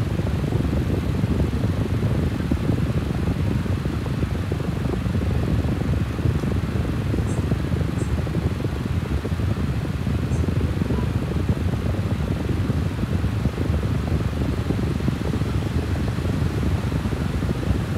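Steady low rumbling background noise, with a few faint light ticks near the middle.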